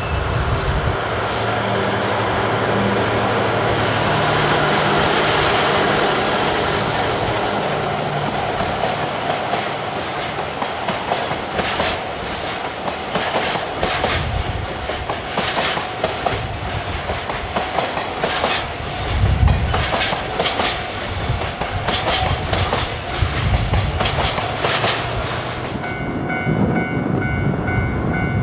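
Diesel-hauled freight train passing: a low engine drone at first, then the rhythmic clickety-clack of the wagons' wheels over the rail joints. About two seconds before the end the clatter stops suddenly and a repeating ringing tone is left.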